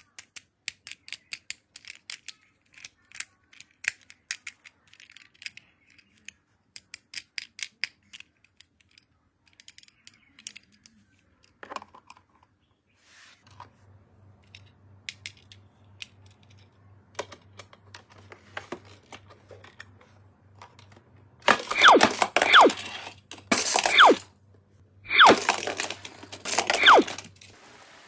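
Toy packaging being handled and opened: a long run of small sharp clicks and crackles, then, near the end, three or four loud rips like tape or plastic being torn off, with a squeaky falling pitch. A low steady hum runs underneath the second half.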